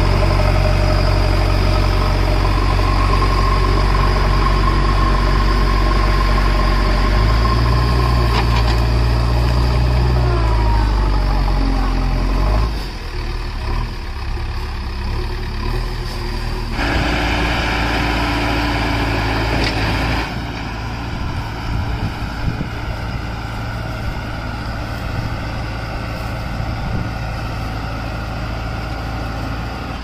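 JCB 3DX backhoe loader's diesel engine running while the backhoe works. Its pitch rises about seven seconds in and drops back sharply at about thirteen seconds, then the engine runs on at a lower, steady note.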